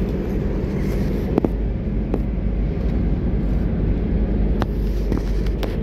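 Steady road noise inside a moving car's cabin: a low rumble of tyres on wet pavement and the engine, with a few light clicks.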